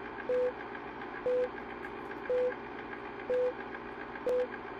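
Film countdown leader sound effect: a short, steady beep about once a second, five in all, over a constant background hiss of old film.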